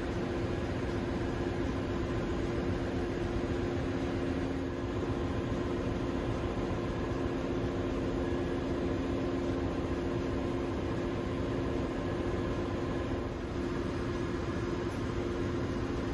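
Steady drone of ship's engine-room machinery: an even rushing noise with a constant low hum.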